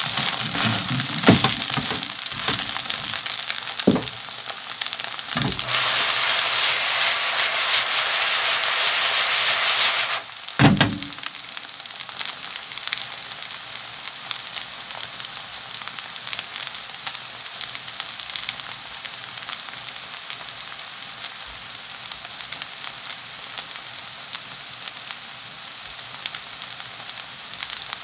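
Korean vegetable pancake batter frying in oil in a pan, a steady sizzle and crackle. It is louder for the first ten seconds, with a few sharp knocks against the pan. After the last and loudest knock, about ten seconds in, the sizzle settles quieter.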